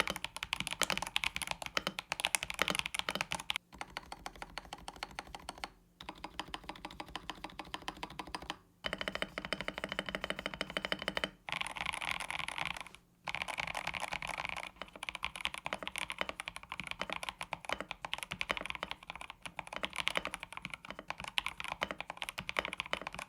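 Rapid typing on a mechanical keyboard fitted with Epomaker switches, in several short takes with abrupt cuts between them, as the switch types are compared by sound.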